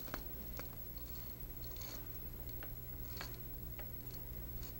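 Faint scattered ticks and light rustles of thin metallic decorative wire being unwound from its spool and wrapped by hand around a taped floral stem wire, over a steady low hum.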